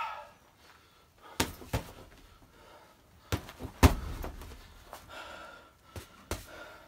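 Gloved punches landing on a 75-pound UFC heavy bag: sharp thuds, mostly in quick pairs of two, with pauses of a second or two between combinations.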